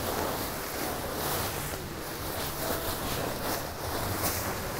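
A large plastic bag of foam beads and epoxy resin kneaded by hand like dough, mixing the resin through the beads for a seat pour: continuous crinkling of the plastic and rustling of the shifting beads.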